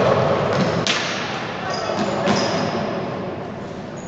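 Futsal ball kicked and bouncing on a wooden indoor court, two sharp thuds about one and two and a half seconds in, echoing in a large sports hall, over players' shouts and hall chatter.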